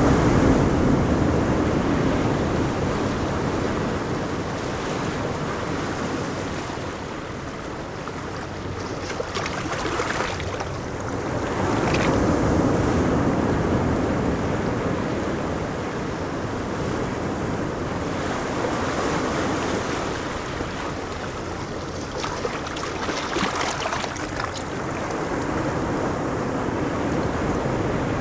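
Ocean surf breaking on a beach: a steady wash of waves that swells and ebbs every several seconds.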